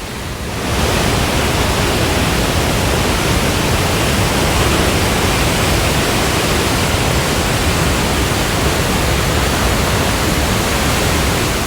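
Murchison Falls, the Nile forced through a narrow rock funnel: a loud, steady rush of falling water across all pitches, swelling just under a second in and then holding even.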